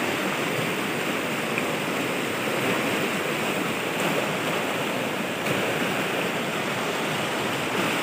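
Swollen, muddy river in flood rushing over rocks in rapids: a steady rushing of fast water.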